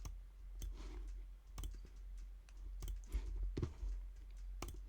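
A handful of sharp single clicks, irregularly spaced about a second apart, over a low steady hum.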